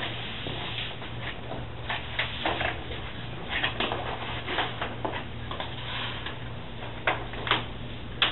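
Scattered short rustles and light taps of a self-adhesive wall mural sheet being handled, with footsteps on a hard floor, over a steady low hum.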